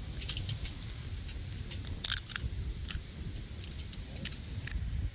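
Aluminium foil crinkling in sharp crackles and taps while an egg is cracked open onto it, over a steady low rumble of wind on the microphone.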